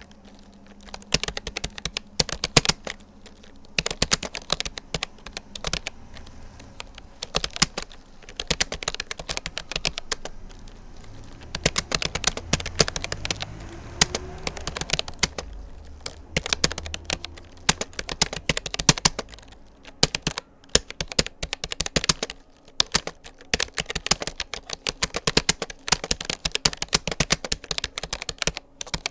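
Typing on a Rapoo computer keyboard: rapid runs of key clicks with short pauses between words and phrases, during a timed typing test of about 40 words per minute.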